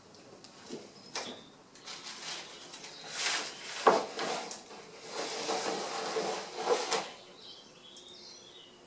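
Scraping and clattering of wooden boards and strips being handled in a stack, with one sharp knock about four seconds in. Faint bird chirps near the end.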